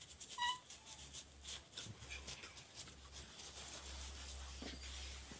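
A cat gives one short, high mew about half a second in, while gauze is wiped round its infected mouth, with faint clicks and rustling from the handling.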